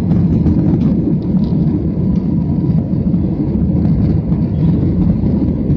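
Jet airliner at take-off thrust, heard inside the cabin: a loud, steady low rumble of engines and the take-off run, with a faint steady whine above it.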